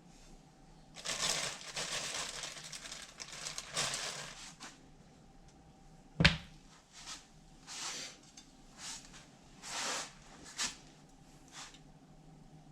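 Kitchen handling sounds while putting food together: a few seconds of rustling and crinkling, a single sharp clack about six seconds in, then several short brushing or scraping sounds.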